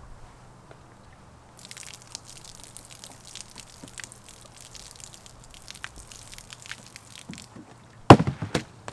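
Liquid from a plastic gas can pouring and splashing over a seated man, a spattering hiss that starts about a second and a half in and runs for about six seconds. Near the end comes a much louder, sudden burst of a few close strokes lasting about half a second.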